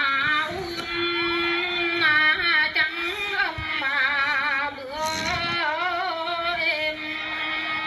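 A high voice singing a celebratory song in slow, long-held notes with a wide vibrato.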